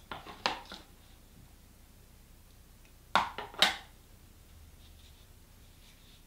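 Hands working wet flour paste and paper: a few light, short squelching rustles at the start, then a louder quick cluster of three or four a little past the middle.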